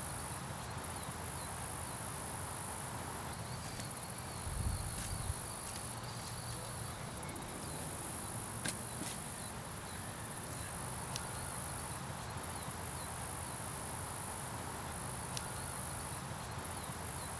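Steady high-pitched chorus of insects trilling, swelling and easing every few seconds, with a few faint clicks and a low thump about five seconds in.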